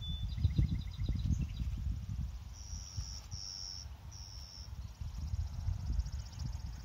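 Wind buffeting the microphone in gusts, over high, thin trilling and buzzing insect-like calls. There is a short run of descending chirps in the first second or so. No drone motor is heard.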